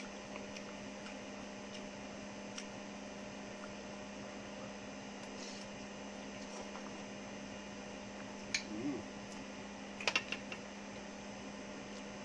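Steady low electrical hum in a small room, with a few short clicks about two-thirds of the way through.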